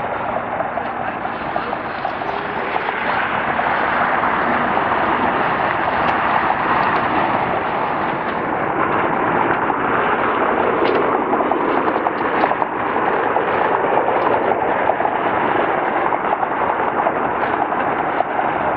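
Four jet engines of an Airbus A340-300 running loud and steady as the airliner rolls out along the runway after landing, a dense rushing roar throughout.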